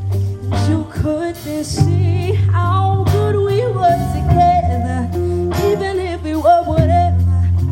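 Live R&B song: a voice singing wavering runs over a deep, steady bass line and regular drum hits.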